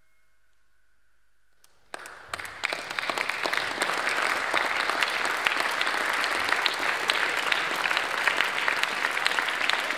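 Near silence for about two seconds, then an audience breaks into applause that quickly builds to steady, dense clapping at the end of the piece.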